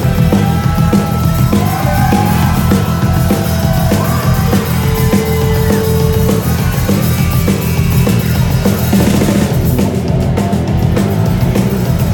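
Loud live punk rock band playing an instrumental intro with no vocals yet: distorted electric guitar through Marshall amps, bass guitar and a driving drum kit.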